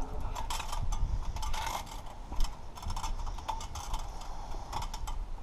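Irregular clicking and rattling of work being started on a metal roof, with a low rumble underneath.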